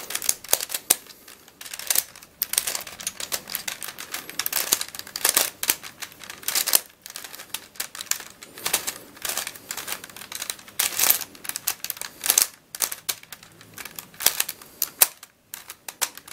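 Plastic Helicopter Dodecahedron twisty puzzle being turned by hand to scramble it: quick, irregular clicking and clacking of plastic pieces as its faces are twisted.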